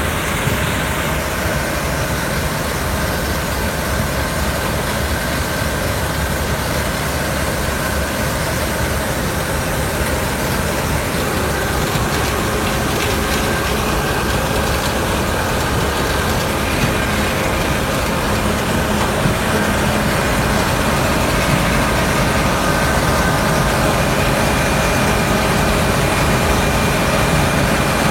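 An engine running steadily, getting a little louder in the second half.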